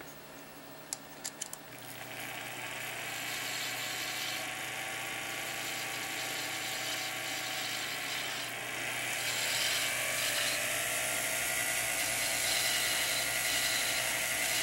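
Jeweler's lathe running with a steady whir as a hand graver cuts a brass rod, after a few light clicks in the first two seconds. The whir grows louder after about two seconds, and its pitch rises slightly about ten seconds in.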